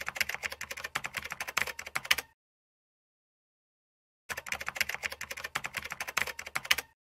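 Computer keyboard typing sound effect: two runs of rapid key clicks, each about two and a half seconds long, with a dead-silent gap of about two seconds between them.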